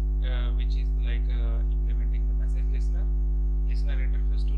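Steady electrical mains hum, a low buzz with a ladder of overtones, with faint short sounds flickering over it a couple of times.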